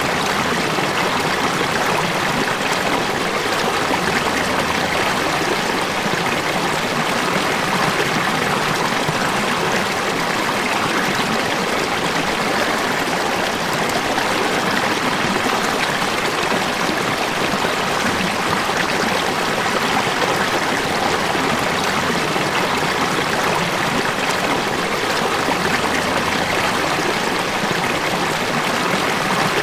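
Water falling and running steadily, an even rushing splash with no breaks or changes.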